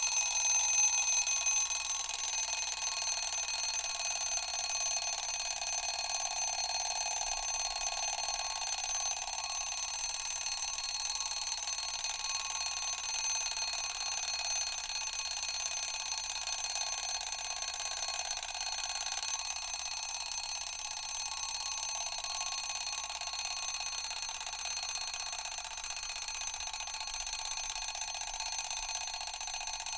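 Mechanical alarm clock ringing without a break: a continuous metallic bell ring that eases off slightly near the end.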